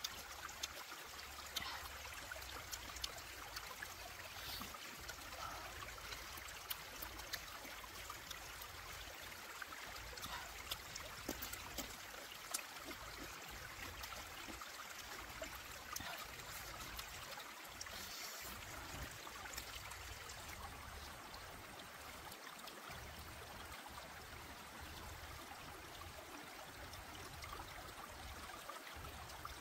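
Steady trickle of a shallow stream, with small sharp clicks and smacks of chewing close to the microphone.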